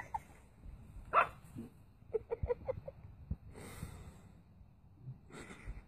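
A puppy yapping and barking in short bursts, with a quick run of about six high yips around two seconds in.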